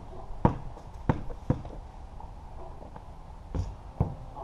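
Basketball bouncing on a concrete patio: three dribbles in the first second and a half, then two more thuds near the end.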